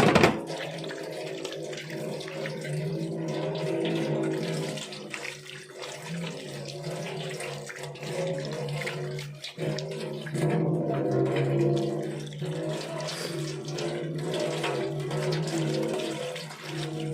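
Water running from a tap into a sink while the gutted fish is rinsed, with a steady low hum beneath it.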